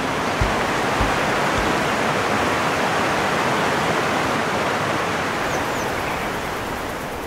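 Steady rush of a waterfall, with a few low thuds in the first two seconds and faint bird chirps near the end.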